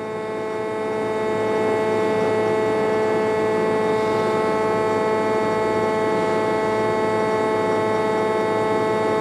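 Steady electrical machine hum: several held tones sounding at once over a low rumble, growing a little louder over the first two seconds and then holding even.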